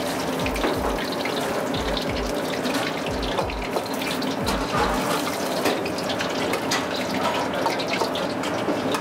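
Steady rushing hiss of a busy restaurant kitchen, like running water, with low thumps about twice a second that stop about halfway through.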